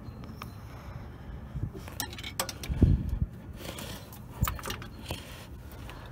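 A screwdriver prying at a stubborn speed sensor wire retaining clip on a car's rear suspension: scattered sharp metallic clicks and scrapes, with a dull knock about three seconds in.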